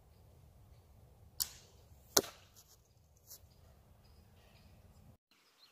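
A distant bow shot gives a faint crack, and under a second later the arrow strikes the foam 3D archery target with a loud, sharp thwack.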